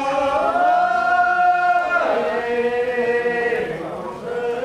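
Slow chanting: long held vocal notes that glide from one pitch to the next about halfway through.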